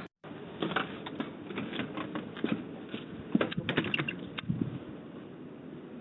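A quick, irregular run of clicks and taps that stops about four and a half seconds in.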